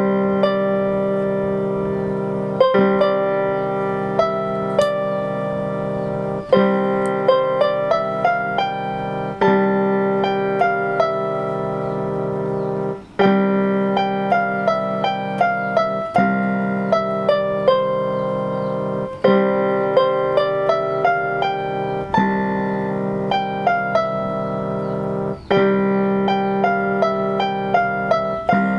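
Background music: a gentle piano piece with sustained chords and repeating phrases of notes.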